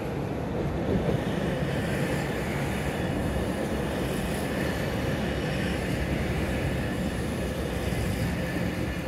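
A pair of Alstom Coradia LINT diesel railcars running past on an elevated concrete guideway: a steady mix of diesel engine and wheel-on-rail noise.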